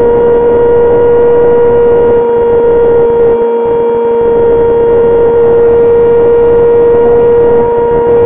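E-flite Opterra's brushless electric motor and propeller running at a steady high throttle, a loud constant whine, with wind rushing over the onboard microphone.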